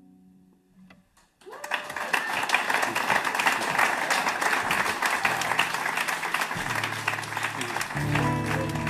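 Acoustic guitar music fades out. About a second and a half in, loud applause and cheering start suddenly and carry on, with music coming back in underneath near the end.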